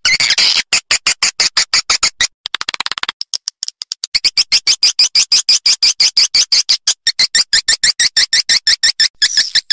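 Swiftlet calls played as a lure track to draw swiftlets into a nesting house: rapid runs of sharp chirps, about eight a second. There is a faster, fainter stretch of clicking about a third of the way in.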